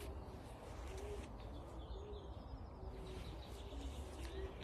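Racing pigeons cooing: a run of soft, low coos repeating every second or so, with faint songbird chirps above them.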